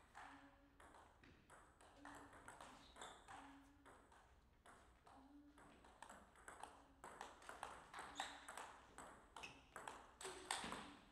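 Faint clicks of a table tennis ball: bounced before the serve, then a quick rally of hits off paddles and table.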